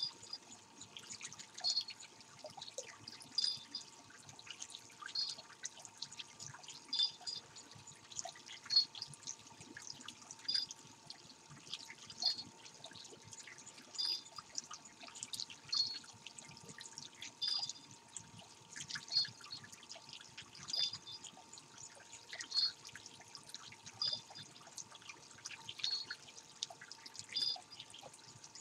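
Water plopping and splashing at a steady rhythm, about once every second and three-quarters, as a Japanese pond turtle splashes at the surface of a small pond. A faint steady hum runs underneath.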